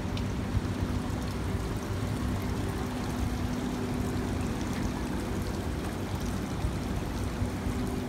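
Water running down a slate-clad water-feature wall into a shallow channel, a steady trickling splash, with a steady low hum under it.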